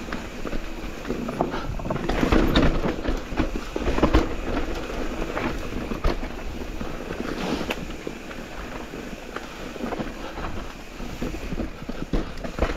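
Mountain e-bike being ridden over rough trail: a dense clatter of tyre and frame knocks over bumps, with wind noise on the microphone, loudest a couple of seconds in.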